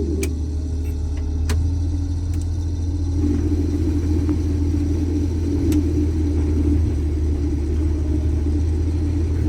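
Case IH 2166 combine running with a steady low drone that swells about three seconds in, with a few sharp clicks over it, as the feeder reverser is worked to clear a plug.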